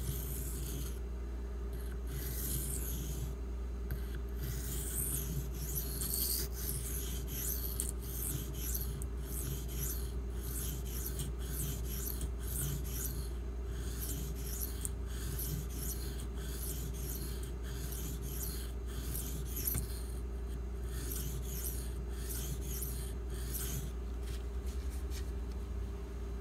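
A 1095 carbon-steel pocketknife blade (GEC TC Ancient Barlow) being stroked across a Shapton Glass whetstone: a run of short scraping strokes, about two a second, while the bevel is ground and the stubborn rear of the edge is worked. A steady low hum runs underneath.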